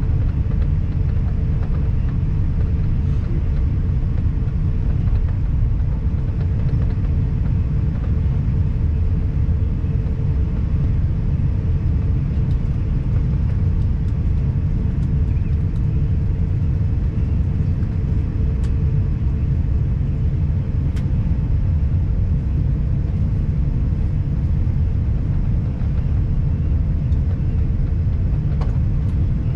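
Steady low rumble of airliner cabin noise as an Airbus A350-1000 taxis after landing, its Rolls-Royce Trent XWB engines at idle, with a steady hum running through it.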